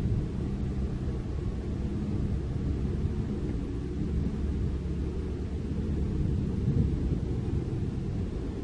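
Diesel engine of a loaded light dump truck running as it drives slowly along a dirt haul road, a low steady rumble with a faint engine hum.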